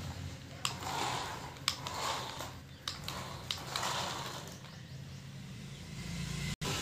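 Toy remote-control car's small electric motor and plastic gears whirring in several short bursts as it drives across concrete, with scattered sharp clicks.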